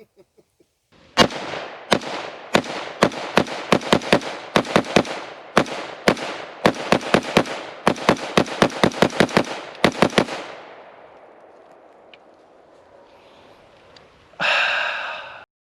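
A long string of rapid semi-automatic gunshots, about three a second, each with an echoing tail, running for about nine seconds before fading out. Near the end comes a brief ringing tone.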